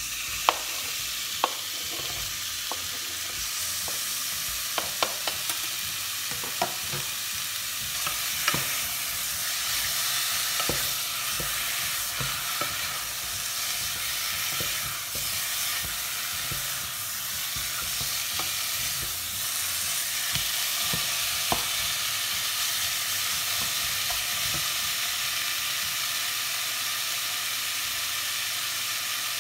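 Diced raw chicken breast frying with onion in a saucepan, a steady sizzle as the meat is sealed. Scattered clicks and knocks of a wooden spoon stirring against the pan, most of them in the first ten seconds or so.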